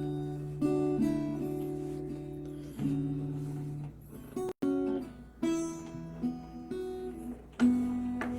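Slow, unhurried chords strummed on an acoustic guitar, about eight strokes, each left to ring and fade before the next. A momentary dropout in the sound comes about halfway through.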